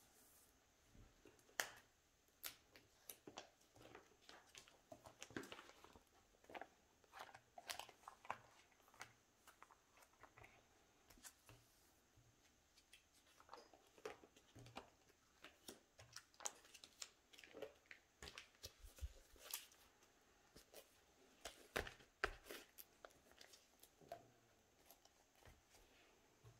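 Photocards and plastic binder sleeves being handled: faint, irregular clicks and crinkles as cards are slid out of and into the pockets.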